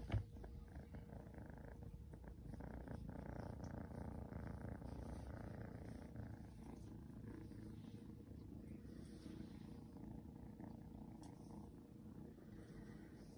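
Seal point Ragdoll kitten purring steadily while being stroked under the chin, with one short knock just at the start.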